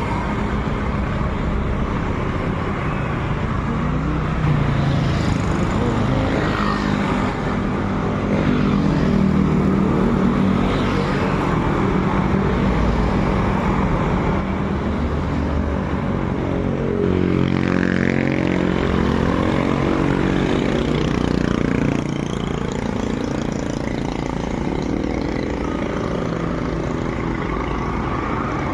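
A motor vehicle engine running steadily, its pitch dipping and rising again about two-thirds of the way through.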